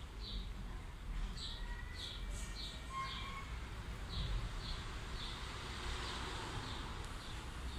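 A small bird chirping over and over, short high chirps at about two a second, with a few softer drawn-out notes from another bird early on.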